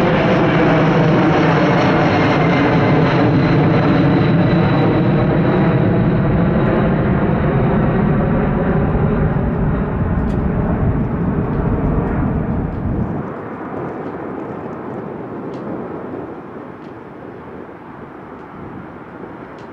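USAF C-17 Globemaster III's four turbofan engines passing overhead and flying away: a loud jet rumble with a high whine that slowly falls in pitch. About two-thirds of the way through, the deep rumble drops away suddenly and the sound fades.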